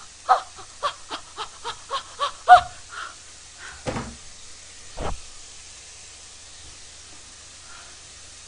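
A woman's high voice chanting short rhythmic syllables, about three or four a second, for the first two and a half seconds, with a few dull thumps around the middle. After that there is only a faint steady hiss from pork belly sizzling in a frying pan.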